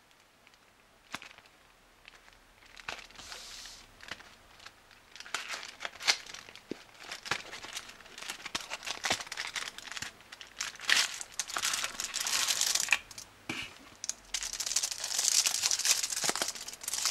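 Cardboard chocolate-bar box being torn open and the foil-wrapped bar pulled out and handled: scattered sharp tearing and rustling, building into dense aluminium-foil crinkling that is loudest in the last few seconds.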